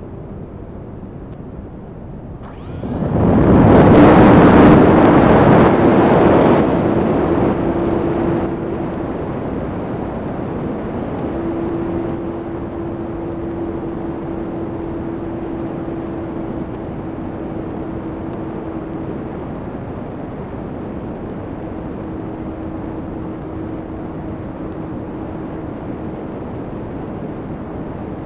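Onboard sound of an FMS 800mm V-tail electric RC plane: a sudden loud rush of wind and motor noise about two and a half seconds in as it is launched. Over the next several seconds this eases into a steady rush of airflow with a faint steady whine from the motor and propeller in flight.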